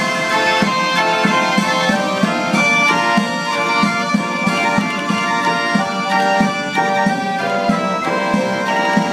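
A PianOrchestra orchestrion, a roll-played automatic instrument with pipe ranks, piano and percussion in one cabinet, playing a tune. It gives held pipe notes over a steady, even beat.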